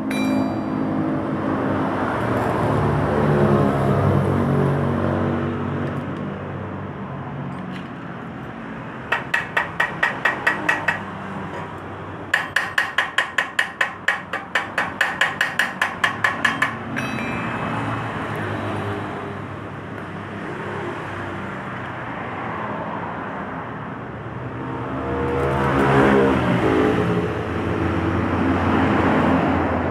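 Rapid metallic tapping on the steel motorcycle muffler, about five sharp ringing strikes a second, in a short run and then a longer run of several seconds. Behind it, steady road traffic, with a passing vehicle's engine swelling and fading near the start and louder near the end.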